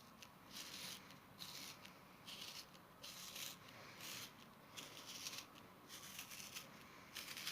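Repeated scraping strokes of a utensil gouging out the flesh of a raw white turnip to hollow it, a faint rasp about once a second.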